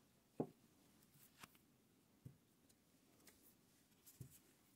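Near silence broken by four faint, short knocks of metal lathe tool holders being handled and set down on a cloth-covered bench; the first, about half a second in, is the loudest.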